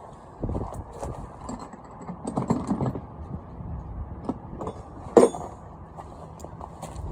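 Hand tools and metal parts being handled: scattered clinks and knocks, one sharp knock about five seconds in, over a steady low rumbling haze.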